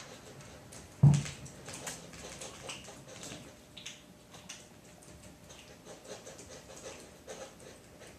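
Kittens playing on carpet: scattered small scratches, taps and scuffles from their paws, with one loud thump about a second in.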